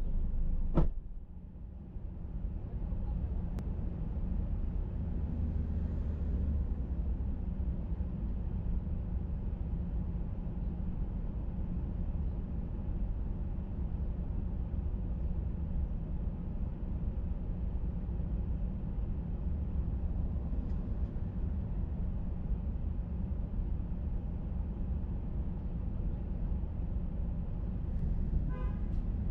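Steady low rumble of a car running, with one sharp thump about a second in.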